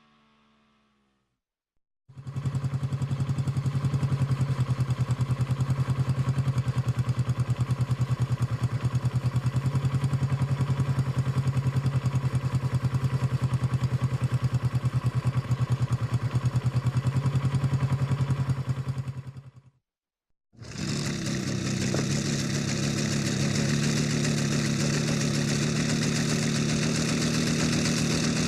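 A motorcycle engine running steadily at idle with an even pulsing beat, cutting off suddenly about two-thirds of the way through. After a brief gap a second motorcycle engine recording starts, also running steadily at idle, with a brighter, hissier sound.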